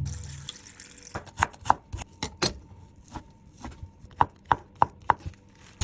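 Kitchen knife chopping vegetables on a cutting board: a dozen or so sharp knocks at an uneven pace. A low ringing hit from just before fades out in the first half second.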